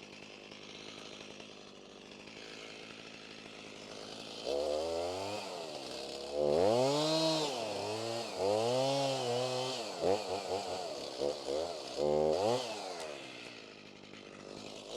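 Two-stroke Stihl Farm Boss MS290 chainsaw, faint for the first few seconds, then revved up and down repeatedly from about four seconds in, its pitch rising and falling with each rev.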